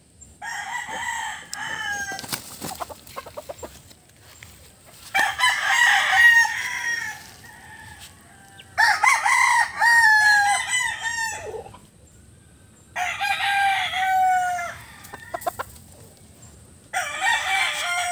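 Roosters crowing: about five long crows, each a second or two, coming roughly every four seconds.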